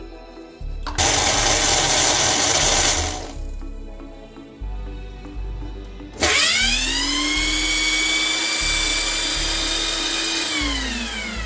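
Personal bullet-style blender blending milk and Oreo cookies: the motor whirs up quickly in pitch, runs steadily for about four seconds, then winds down near the end. Earlier, about a second in, a loud rushing noise lasts about two seconds.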